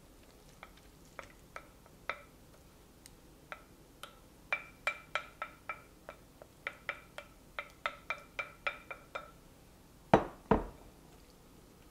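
A spoon knocking against a glass mixing bowl as a thick spinach-ricotta filling is scraped out: a run of ringing clinks, a few a second, each at the same pitch. Near the end come two heavier thuds as the glass bowl is set down on the counter.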